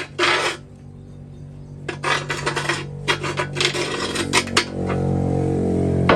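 Steel tools and metal parts clinking and scraping as they are handled, in several bursts, over the steady hum of a running lathe motor that grows louder near the end.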